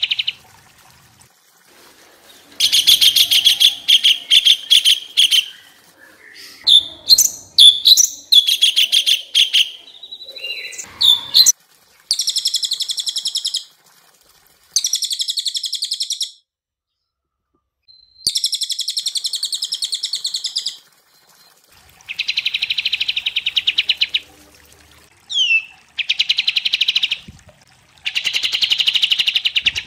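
Recorded birdsong of the cililin, kapas tembak and cucak cungkok mixed as training song for caged songbirds. It comes as about ten bursts of very fast, rattling trills, each one to three seconds long with short gaps, and a stretch of varied whistles and quick gliding notes in the first third.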